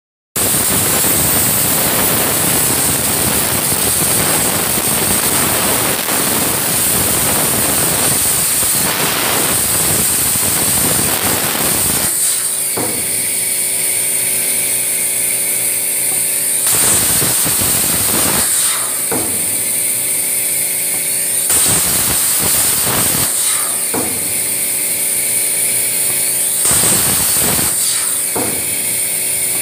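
CNC plasma cutter cutting aluminium sheet: the plasma arc's harsh hiss runs unbroken for about twelve seconds. After that it cuts in and out every few seconds, and in the gaps a high air hiss and a steady machine hum remain.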